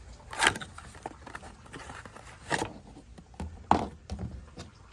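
Handling noise: a few knocks and rustles as a new round AC run capacitor is handled. The three loudest come about half a second in, midway, and near the end, with lighter taps between.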